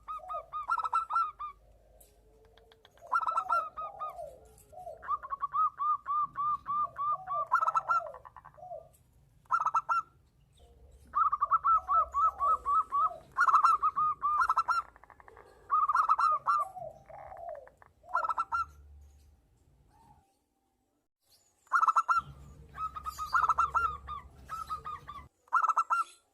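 Zebra doves (perkutut), a male and a female, calling back and forth. The song is phrases of rapid, evenly spaced staccato coos with lower rising-and-falling coo notes between them, one to three seconds long and separated by short pauses. There is a brief silent break about three-quarters of the way through.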